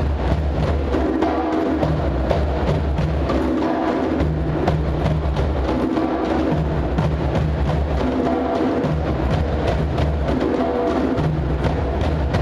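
Dance music with a steady percussion beat of sharp, wood-block-like strikes over a sustained melody and a strong bass line.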